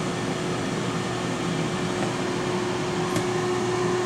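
T-fal air fryer running mid-cook: its fan blows steadily, with a constant hum under the rush of air.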